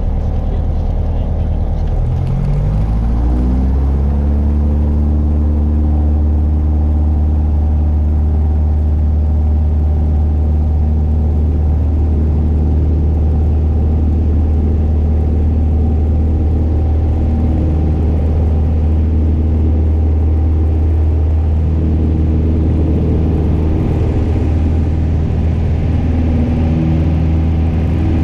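Piper PA-28's piston engine and propeller, heard inside the cabin, rising in pitch about two to four seconds in as power comes up. It then runs steadily at high power, the sound of full throttle for the takeoff roll.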